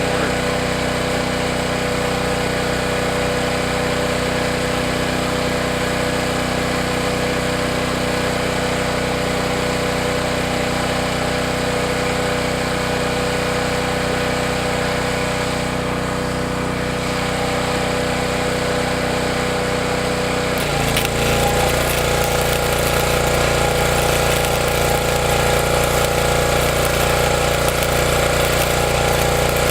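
A machine running with a steady, pitched hum. About two-thirds of the way through, its pitch drops and it grows louder and rougher, as if put under load.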